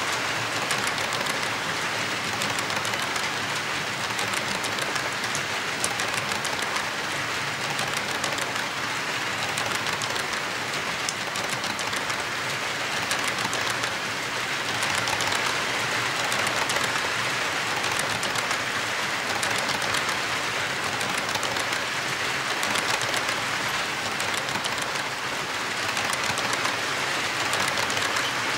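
HO-scale model tank cars rolling past on sectional track: a steady rolling clatter of small metal wheels on the rails, with fine ticking as the wheels pass over the rail joints.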